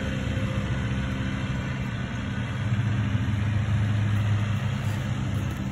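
Compact tractor's engine running steadily as it drives along the road, getting a little louder and lower in pitch about halfway through.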